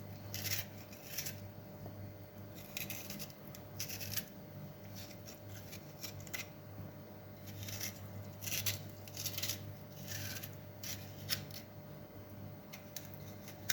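Metal dolma corer scraping and gouging the crisp flesh out of the middle of a raw radish, in short, irregular strokes.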